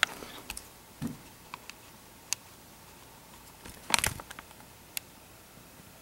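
Faint scattered clicks and handling noises from fingers working adhesive tape off a laptop LCD panel, with a louder cluster of rustling clicks about four seconds in.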